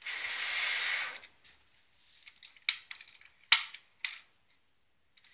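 About a second of noisy rustling of toy packaging, then three sharp plastic snaps spread over the next couple of seconds.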